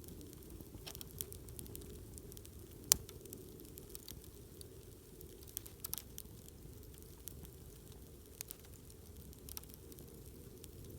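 Wood campfire crackling, with scattered sharp pops, one loud pop about three seconds in, over a low steady rumble.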